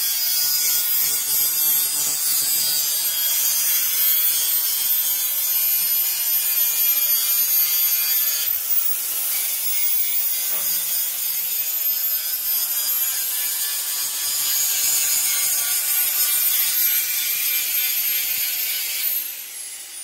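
Grinder working on steel: a steady, high-pitched grinding hiss with a thin whine, which fades near the end.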